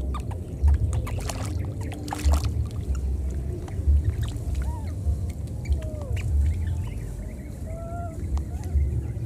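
Light splashing in shallow swamp water in the first couple of seconds, then a handful of short, squeaky, chirp-like animal calls, all over low buffeting on the microphone.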